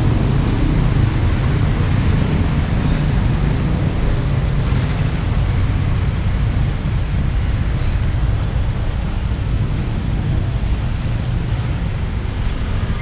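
Steady low rumble of a running engine, even throughout.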